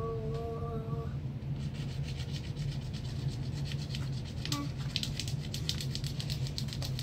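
Wooden stylus scratching black scratch-art paper in fast, repeated back-and-forth strokes, starting about a second and a half in.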